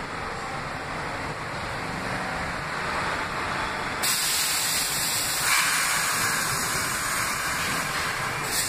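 R62A subway train of the 6 line at the platform, its running noise joined about four seconds in by a sudden steady hiss of air that stops just before the end.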